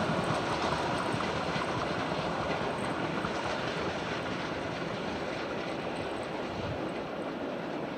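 Two-cylinder class 52 steam locomotive working hard with a freight train, its exhaust beats and the rolling of the wagons fading steadily as the train pulls away.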